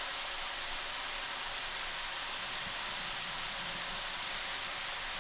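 Potato chips deep-frying in hot oil in a steel wok, a steady sizzling hiss.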